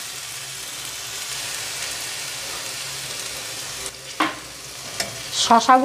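Diced potatoes, peanuts and chillies sizzling in hot oil in a metal kadai, a steady frying hiss. A metal spatula knocks against the pan twice near the end.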